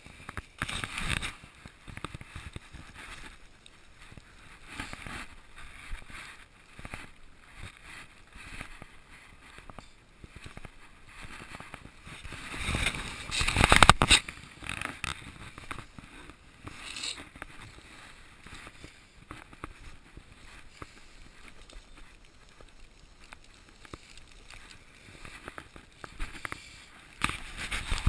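Snow shovel scraping and pushing snow in irregular strokes, the longest and loudest about halfway through, cutting off sharply.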